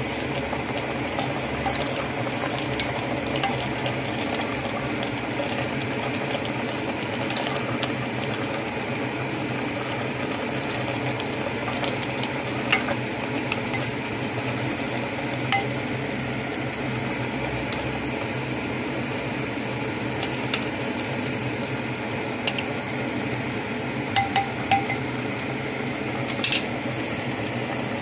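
A spoon stirring saluyot leaves in a speckled enamelware pot of broth, with a few light clinks of the spoon against the pot, scattered through, over a steady hum.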